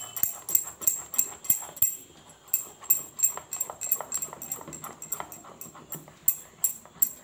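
Silicone spatula stirring a thick, wet batter of milk-soaked Oreo biscuits in a bowl: a rhythmic wet squelching and scraping, about three strokes a second.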